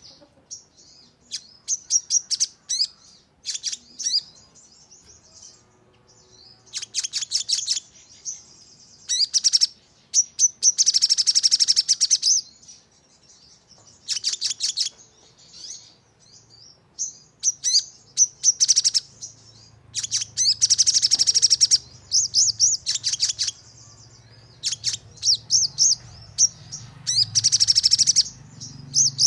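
Sogon (a sunbird) singing in bursts of rapid, high-pitched chirps separated by short pauses, with several dense, fast trills a second or two long: the 'nembak' shooting song used as a lure to set off other sogon.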